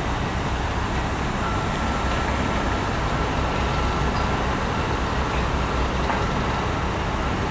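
Heavy construction machinery running steadily, a low engine rumble under a broad hiss, with a faint thin whine through the middle stretch.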